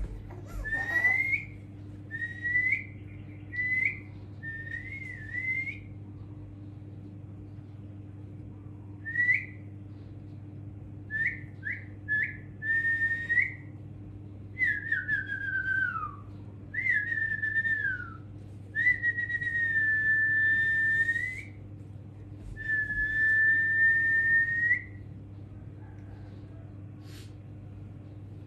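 A person whistling a string of notes: short upward-flicking chirps at first, then a few notes gliding downward, and two long, steady held notes near the end.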